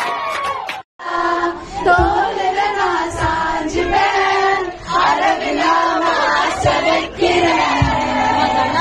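A crowd of people singing or chanting together in unison, with a few low thumps. The sound cuts out briefly about a second in.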